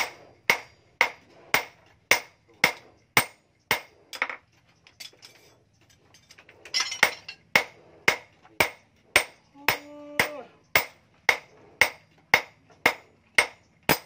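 Hand hammer striking a steel axe head on an anvil in a steady rhythm of about two ringing blows a second. The blows break off for about two seconds near the middle, leaving only a few light taps, then resume.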